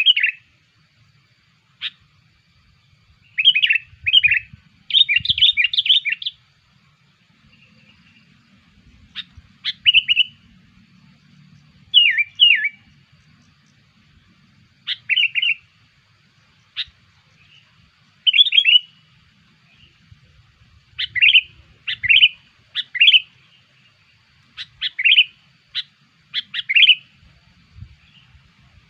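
Sooty-headed bulbul (kutilang) giving its lure call: short, bubbly chirping phrases repeated every couple of seconds, with a quick run of them a few seconds in.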